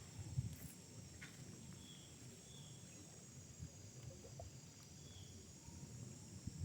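Birds giving short chirps three or four times over a steady high-pitched insect drone, with soft footsteps on the forest floor.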